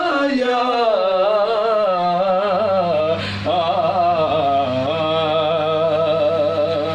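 A solo male voice singing an Urdu naat in a classical style: long drawn-out phrases whose held notes waver and ornament in pitch, with a short breath about three seconds in.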